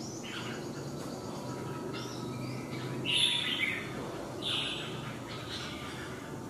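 Caged red-whiskered bulbul calling in short, bright phrases, the loudest about three seconds in and again a second or so later, over a steady low background hum.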